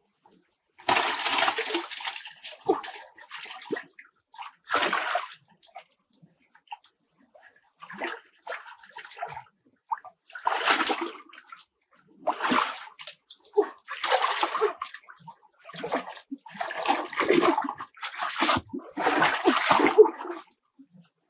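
Water splashing and sloshing in short, irregular bursts, about a dozen of them with quiet gaps between.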